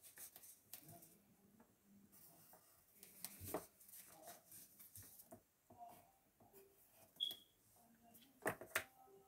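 Near silence in a small room, with faint scratching and tapping of a wooden pencil writing on a paper worksheet on a desk, and a few sharper clicks.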